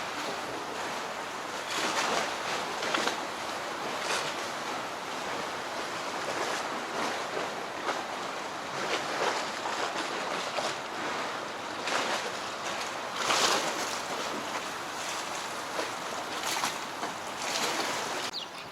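Water washing and splashing in waves: a steady rush with irregular louder surges every second or few, cutting off just before the end.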